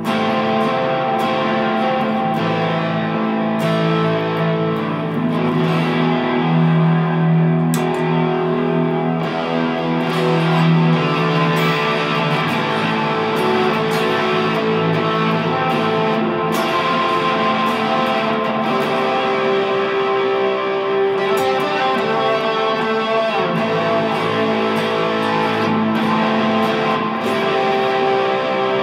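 Telecaster electric guitar played through a Dr. Z Cure tube amp and effects pedals: notes and chords held and overlapping, ringing on at a steady level.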